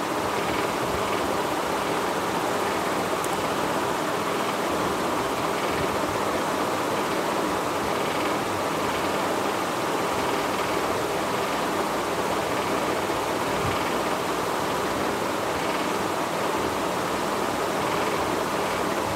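Steady, even hiss of room noise with a faint low hum underneath and no other events.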